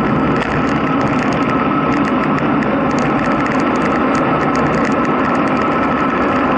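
Steady wind rushing over the camera microphone with tyre noise on tarmac during a descent at about 20 to 30 km/h, with faint, irregular high ticking.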